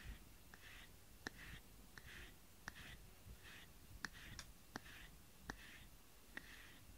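A grooming brush stroking through a cat's fur: faint, rhythmic swishes about one and a half times a second, with scattered sharp little clicks between them.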